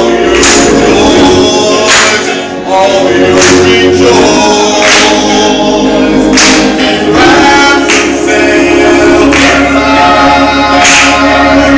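Gospel choir singing a held, chord-rich line, with sharp hand claps on the beat about every second and a half.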